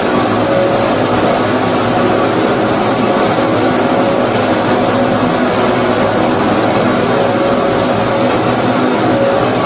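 Steady white-noise track for baby sleep: an even, unbroken rushing hiss, with a few faint steady tones in its middle range.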